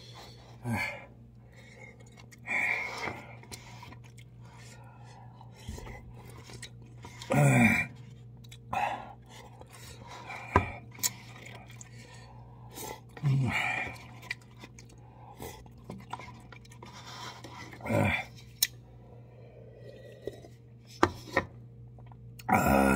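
A man eating instant cup noodles with chopsticks: chewing and slurping, with a few sharp clicks of the chopsticks against the paper cups. Short throaty sounds with falling pitch come every few seconds, over a steady low hum.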